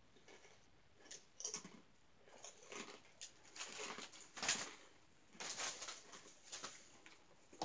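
Faint, scattered crunches and crackles of a crunchy fried snack being bitten, chewed and handled, the loudest about four and a half seconds in.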